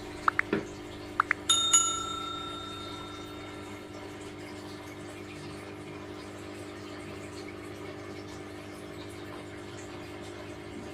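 Two pairs of short clicks, then a single bell ding that rings out for about two seconds: a like-and-subscribe button sound effect. Under it, the steady hum of an aquarium air pump running, with bubbling from the air stone.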